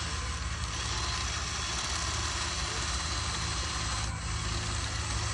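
Steady motor hum with an even hiss, from RC construction machines running.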